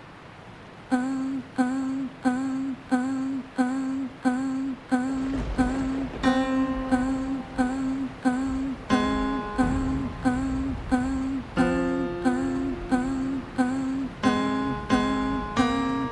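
Instrumental song intro: a single note plucked in a steady pulse, almost two a second, with a bass coming in about five seconds in and held chords building on top from about six seconds.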